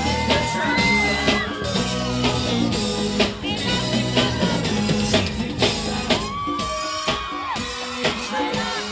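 Live pop-rock band playing, with a male lead singer holding long sung notes over electric guitar, bass and drums with a steady beat.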